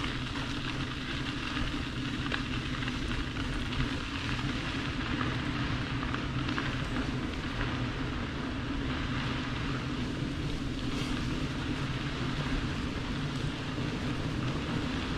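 Bicycle being ridden along a crushed-limestone trail: steady rolling noise from the tyres on the gravel surface.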